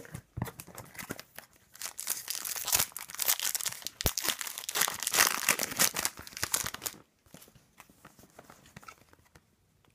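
A trading card pack's wrapper being torn open and crinkled: dense crackling that stops about seven seconds in, leaving only faint rustling.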